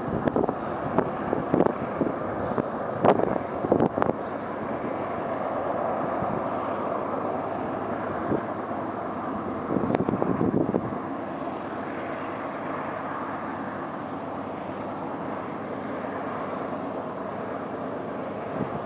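Distant Union Pacific GE AC4400CW diesel locomotives under power, a steady drone, climbing a steep grade with an empty coal train. Wind buffets the microphone several times in the first four seconds and again about ten seconds in.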